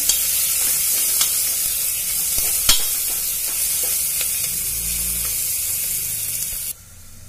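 Chopped onion frying in hot oil in an aluminium pressure cooker, sizzling steadily while a spatula stirs it and scrapes and clicks against the pot. The sizzle cuts off suddenly near the end.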